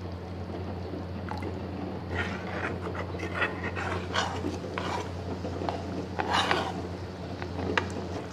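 Paneer cubes being slid off a plate into thick simmering gravy in a steel pan and stirred in with a spoon: soft clinks, scrapes and wet plops, the loudest scrape about six and a half seconds in, over a steady low hum.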